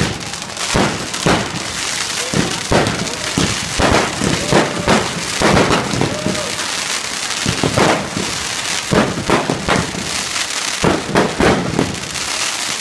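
Fireworks display: aerial shells bursting overhead in a rapid, irregular run of bangs over a dense crackle.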